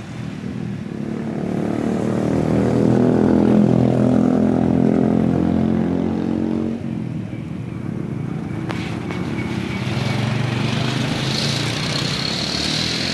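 Motorcycles passing by. One engine note swells over the first few seconds and fades about seven seconds in, then a second, lower engine note comes in with a hiss toward the end.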